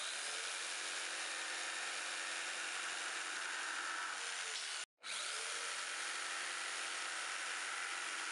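Corded jigsaw running and cutting across a softwood batten: a steady motor whine with the blade rasping through the wood. It cuts out for a moment about five seconds in, then starts again.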